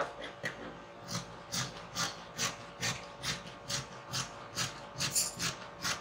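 Scissors snipping through light-blue fabric along a cutting line: a steady run of short snips, about two a second.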